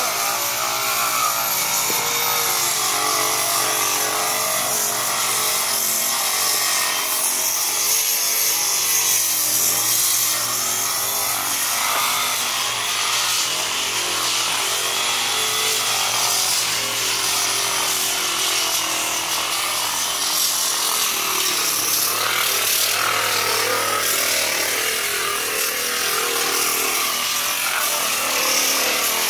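Handheld electric sander running steadily and grinding against pool plaster, sanding down peeling plaster ahead of patching, with a high motor whine that wavers a little as it is pressed and moved.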